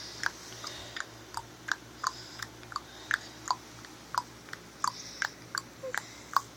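A quick, even series of short wet mouth clicks or smacks, about three a second, like tongue clicking or lip smacking.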